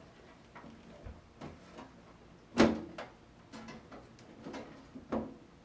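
Scattered knocks and clicks of a mini-tower PC case being turned on its side and its side panel worked open. The loudest sharp knock comes about two and a half seconds in.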